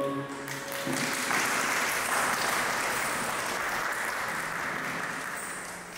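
Audience applauding as the dance music ends: the music's last notes die away at the start, then clapping builds about a second in and slowly fades.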